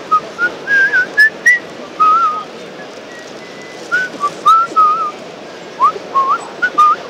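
A person whistling a tune: a quick run of short notes with little slides in pitch between them, pausing a couple of times, over the steady noise of a busy hall.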